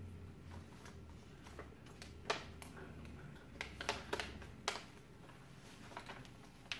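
Protective cover sheet of a diamond painting canvas crinkling as it is peeled back off the adhesive and smoothed by hand: a handful of short, sharp crackles, bunched together about four seconds in.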